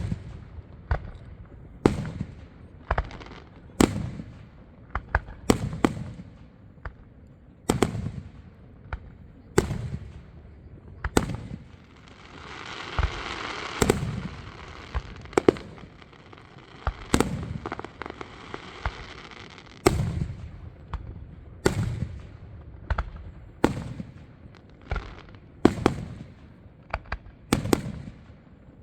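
Aerial fireworks going off in a steady run of sharp bangs, about one a second, with a few seconds of continuous crackling hiss near the middle.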